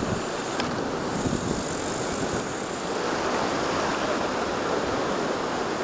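Steady rush of surf washing onto the beach at night, a little louder from about three seconds in.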